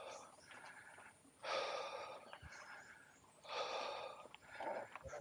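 A cyclist breathing hard while pedalling up a steep off-road climb, with heavy breaths about every two seconds.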